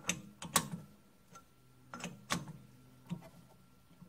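Grizzly G9972Z lathe's four-jaw chuck and spindle turned slowly by hand: a few sharp metallic clicks and clacks from the chuck and headstock gearing, a cluster at the start, another about two seconds in and a single click a second later, over a faint steady hum.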